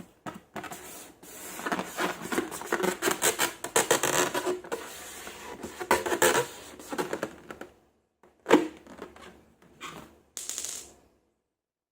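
Slime being handled and squished by hand, a dense run of crackling clicks and rubbing that breaks into a few separate squishes and stops about eleven seconds in.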